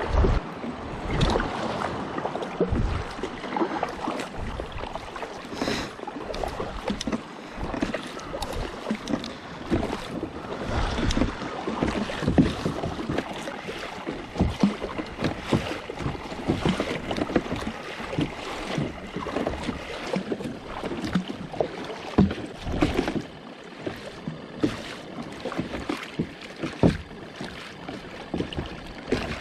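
Sea water splashing and slapping around a plastic fishing kayak on open ocean, with many irregular knocks and splashes.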